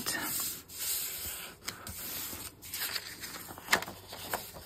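Hands smoothing and handling sheets of paper on a cutting mat: paper rubbing and rustling, with a few sharp crackles near the end.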